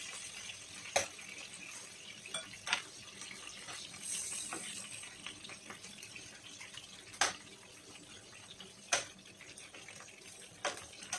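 Chicken pieces sizzling in hot oil in a frying pan, a steady hiss, with sharp clicks of tongs knocking on the pan and plate about eight times as the fried pieces are lifted out.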